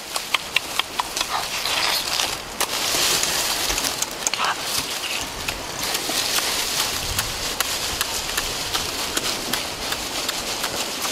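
A person eating roasted turkey with the hands: wet chewing and lip-smacking, heard as many irregular sharp clicks over a hiss of tearing meat.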